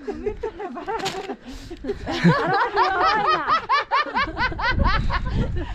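Women laughing, high-pitched. About two seconds in, a long run of quick repeated laughs, with more than one voice overlapping.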